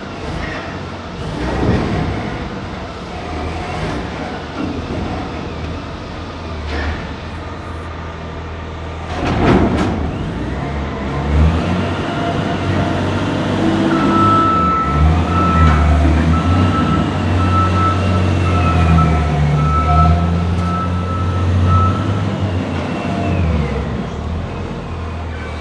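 Linde reach stacker's diesel engine running, working harder and louder from about ten seconds in. A thin steady whine runs through the middle, and there is a single knock just before the engine picks up.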